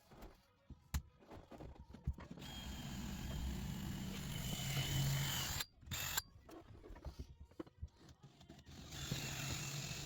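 Screws being driven in while fitting a roof vent: scattered clicks and ticks of tools and fittings, then a power driver running in two longer stretches with a faint whine, the first cutting off abruptly.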